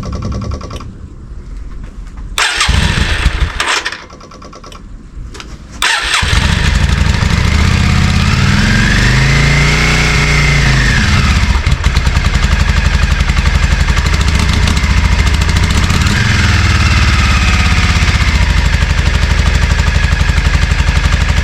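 Yamaha Virago 535 V-twin motorcycle engine being started: a couple of short bursts of cranking, then it catches about six seconds in and keeps running. It is revved up and back down twice. This is the first start after its carburettor jets were cleaned.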